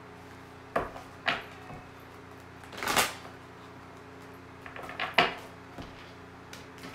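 Tarot cards being handled on a table: a few sharp taps and clicks, and a short swishing rush about three seconds in, over a steady low electrical hum.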